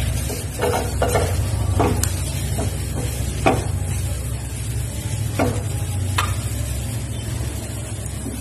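Wooden spatula stirring curry leaves and mustard seeds frying in hot mustard oil in a small steel pan, a tadka tempering. Light sizzling is broken by a scrape or knock of the spatula against the pan about once a second. A steady low hum runs underneath and stops about seven seconds in.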